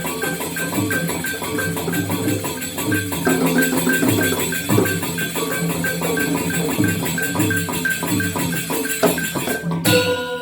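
Balinese gamelan playing a fast, dense pattern on bronze metallophones over steady drum strokes and a regular ticking time-keeper, accompanying a Legong dance. Near the end the dense playing suddenly drops away, leaving struck tones ringing.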